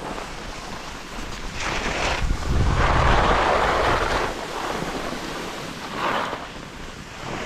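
Wind gusting across the microphone, a hissing rush with low buffeting, strongest from about two and a half to four and a half seconds in, with smaller gusts around two and six seconds.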